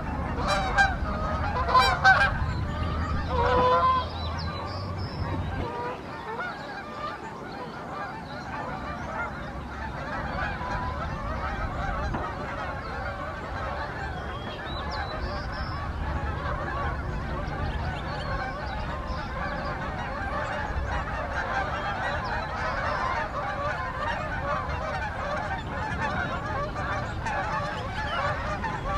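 A big flock of Canada geese honking in flight, many birds calling over one another. A few loud, distinct honks stand out in the first four seconds, then it settles into a dense, steady chorus of overlapping honks.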